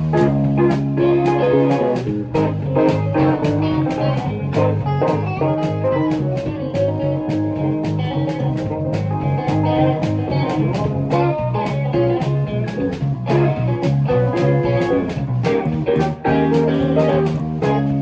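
A band playing a song live: an electric bass plucked with the fingers carries the low line, with guitar over it and sharp drum hits keeping a steady beat.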